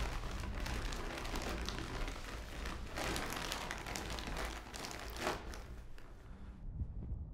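A large clear plastic sheet being pulled off a bed and bunched up: a continuous crinkling and rustling that dies away near the end.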